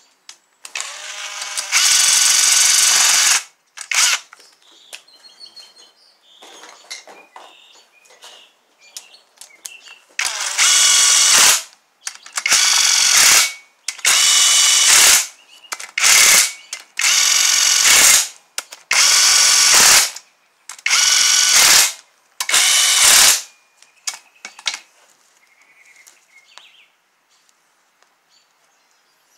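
Power drill running down the bolts of a Toyota 2AZ-FE engine's balance shaft housing in about nine short runs of steady motor whine, each a second or two long. The first run winds up in pitch as the motor spins up.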